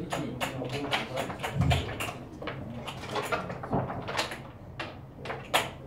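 Scattered sharp clicks and knocks of backgammon checkers and dice on wooden boards, irregular and close together, with one dull thump about a second and a half in.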